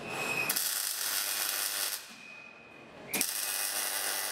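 MIG welding arc crackling on steel tube in two bursts, the first about a second and a half long and the second about a second long, with a short pause between them. A thin steady high whine is heard in the pause.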